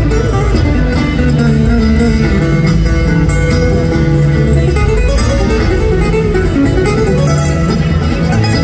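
Live bluegrass band playing an instrumental passage through an arena PA: acoustic guitar, upright bass, mandolin, banjo and fiddle, with no singing.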